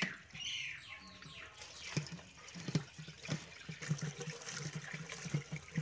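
Water poured from a small steel cup over leafy greens in a steel colander, splashing and trickling through, with hands turning the wet leaves in irregular short splashes.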